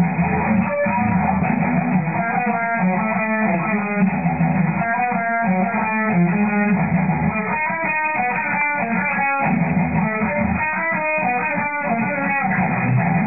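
Music: electric guitar playing a run of changing notes over a bass line.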